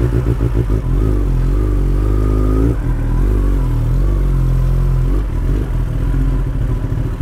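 Kawasaki ZX-10R inline-four with an aftermarket exhaust, running just after being started. It idles loud and steady, with small rises and falls in engine pitch in the first few seconds.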